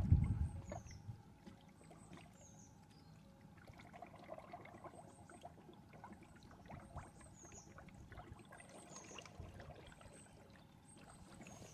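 Coolant pouring in a thin stream from a plastic jug into a plastic funnel on a car's coolant reservoir, a faint steady trickle. A brief low rumble comes at the very start.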